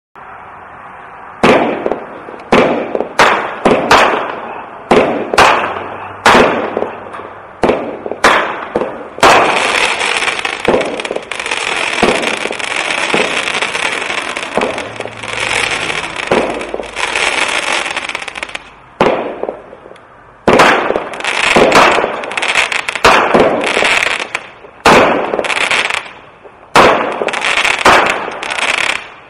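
Powerhouse Fireworks 'Ultimate Finale' 36-shot consumer cake firing. A hiss is followed by sharp shots launching one after another, about one a second. From about nine seconds in comes a long stretch of dense crackling from its crackling comets and peonies, then more shots and crackle near the end.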